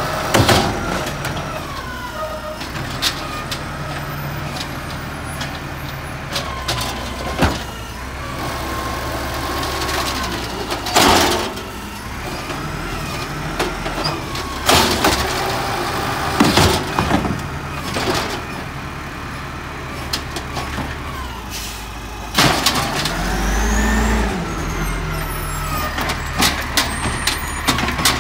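Garbage truck engine running with a whine that rises and falls, broken by about six loud bangs as trash bins are slammed against the truck's hopper. Late on, the engine surges louder with a deep rumble.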